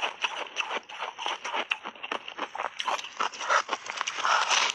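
Ice crunching between the teeth: a chunk of milk-powder-layered ice being bitten and chewed, many crisp crunches in quick succession, with a bigger, louder bite near the end.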